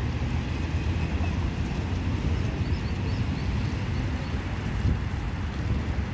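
Wind buffeting the microphone as a low, unsteady rumble over the steady splashing of a small fountain's bubbler jets. A few faint high chirps come about halfway through.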